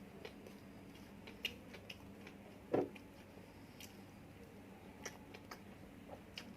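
Close-miked eating sounds: chewing with scattered small mouth clicks, and one louder brief bite just under three seconds in.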